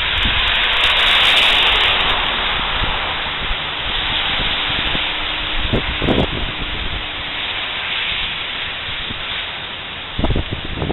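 Steady hiss of a rain-soaked city street in wind: tyres swishing on wet pavement, loudest about a second in as a car passes. A few brief low thumps come near the middle and the end.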